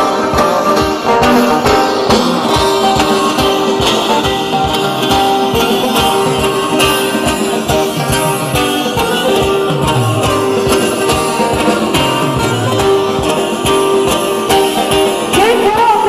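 Live band music: plucked string instruments and singing over a steady beat.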